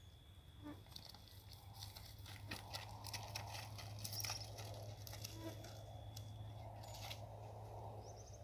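Faint crunching and rustling of footsteps through grass and dry leaf litter, with scattered light clicks over a steady low hum.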